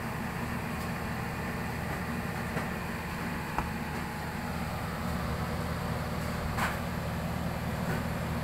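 A commercial ice maker running, with a steady low hum from its refrigeration compressor and condenser fan. Faint clicks come about three and a half and six and a half seconds in.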